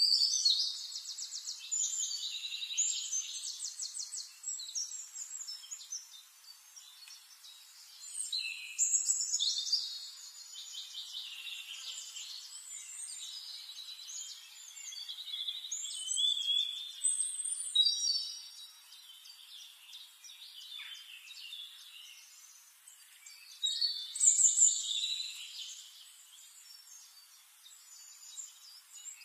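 Birds singing: high chirps and fast trills in several phrases of a few seconds each, the loudest near the start and near the end.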